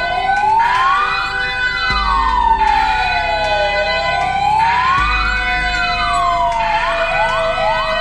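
An electronic siren sounding as the hand-washing alert, wailing slowly up and down in pitch about every two seconds. About seven seconds in it switches to a fast yelp of quick rising sweeps.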